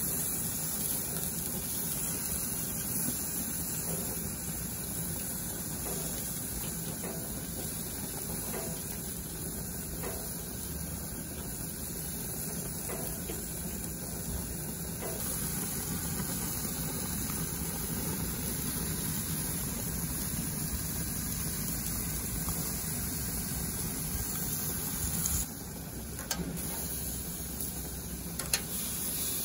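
Chicken skewers sizzling over the lit burners of a gas grill, a steady hiss, with a few light taps as the wooden skewers are turned and a sharp click near the end.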